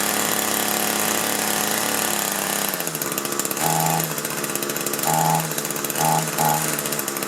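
Echo hedge trimmer's two-stroke engine running, then about four short, louder bursts in the second half as the throttle is squeezed, without the engine revving up. It won't throttle up, which the mechanic puts down to the carburetor's high-speed mixture adjustment.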